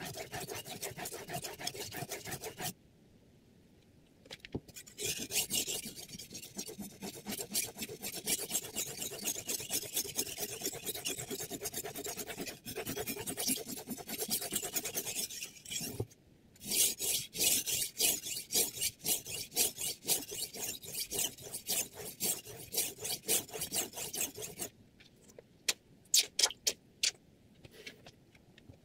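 Steel chef's knife blade stroked rapidly back and forth on a Findking water whetstone: a fast, even run of rasping strokes, sped up on playback. It breaks off twice, about three seconds in and again near the middle, and over the last few seconds it gives way to a handful of sharp scrapes or clicks.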